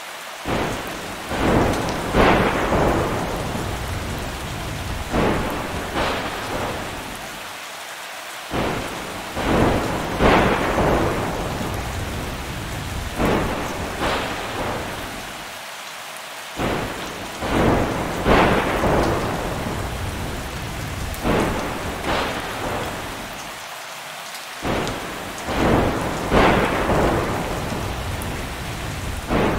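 Heavy thunderstorm: steady rain with repeated sharp thunder cracks, each fading into a rumble. The same stretch of cracks and rumbles comes round again about every eight seconds.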